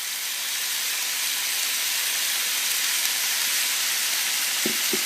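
Small pieces of chicken thigh frying in hot oil in a pan, a steady sizzle.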